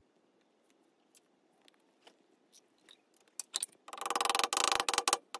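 Bronze and brass lighter-cap pieces being fitted together by hand: a few faint clicks, then, about three and a half seconds in, nearly two seconds of dense metal scraping and rapid clicking.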